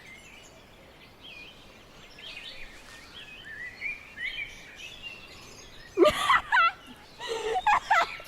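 Small birds chirping and singing faintly over a steady background hiss. About six seconds in, loud wavering vocal sounds from a person break in.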